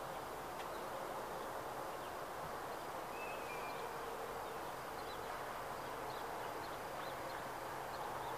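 Steady outdoor background noise with faint high chirps scattered through it and a short whistle about three seconds in.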